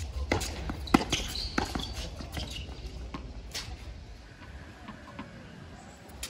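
Tennis balls being struck by racquets and bouncing on a hard court during a doubles rally: a quick string of sharp pops, the loudest about a second in, quieter for the last two seconds or so.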